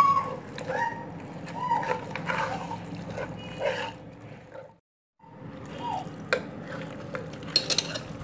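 Wet squelching of raw beef chunks and spice paste being kneaded by hand in an aluminium pressure cooker, with a few light clicks near the end. The sound drops out briefly about halfway through.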